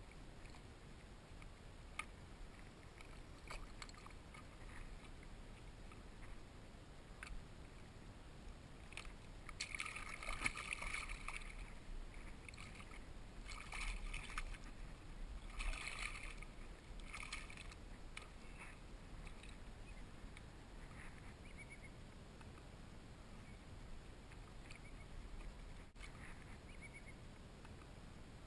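Shallow water splashing beside a kayak in several short bursts as a caught fish is handled at the surface, with a few faint knocks and ticks from gear on the hull.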